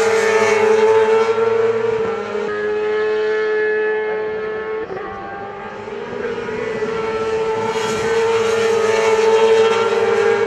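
Supersport racing motorcycles running at high revs, a steady, high engine note. It fades about halfway through and swells again as more bikes come by.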